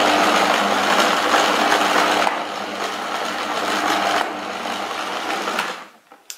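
Kenwood stand mixer's motor running with a low hum as its flat beater churns stiff cookie dough against the steel bowl. The sound drops in level about two seconds in and again about four seconds in, then the mixer stops near the end, followed by a single click.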